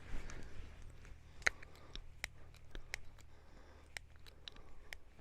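A grease gun is pumped into a grease fitting on a skidsteer grapple, giving a series of sharp, irregular clicks and ticks over a low steady hum.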